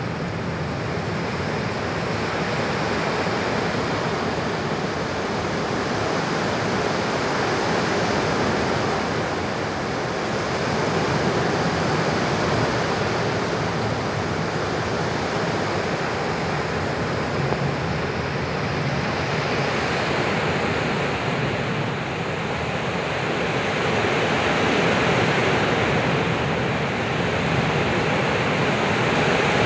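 Seawater rushing and churning steadily as it floods a bulk carrier's cargo hold to take on heavy ballast.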